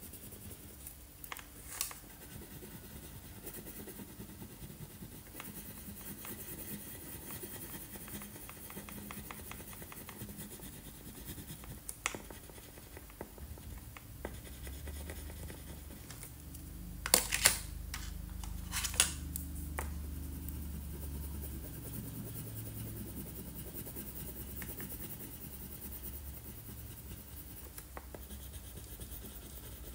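A crayon scratching back and forth on paper as a picture is coloured in, with a few sharp clicks a little past halfway.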